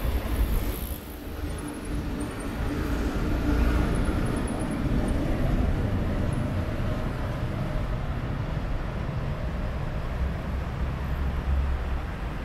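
Road traffic on a city bridge: cars driving past with a steady low rumble and tyre noise, swelling as vehicles pass. A rubber-tyred Paris Métro Line 6 train runs over the viaduct above at the same time.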